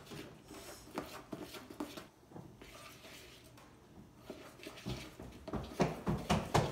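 A spoon stirring cake batter in a stainless steel bowl, clinking and scraping against the metal in irregular knocks that come thicker and louder near the end.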